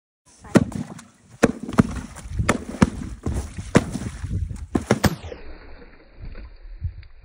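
Golf clubs repeatedly smacking water-filled plastic bottles inside a cardboard box, with water splashing out. About nine sharp hits land in the first five seconds, then a few fainter knocks follow.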